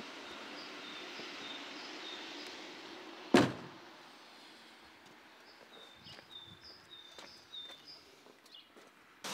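A car door slammed shut once, a sharp bang that is the loudest sound, about a third of the way in. Short high bird chirps repeat about twice a second before and after it.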